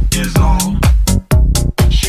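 Techno music: a four-on-the-floor kick drum at about two beats a second, with crisp hi-hats and synth parts over it.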